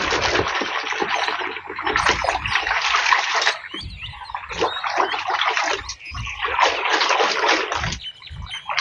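Water splashing as a mud-caked plastic toy gun is washed clean, coming in irregular bursts with a couple of brief breaks.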